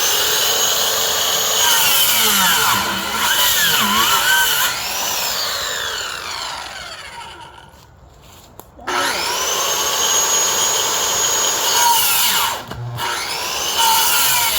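Corded electric saw cutting branches: the motor whines up to speed, its pitch dipping under load as it bites into the wood, then winds down. It starts again about nine seconds in, runs for about four seconds, and gives one more short burst near the end.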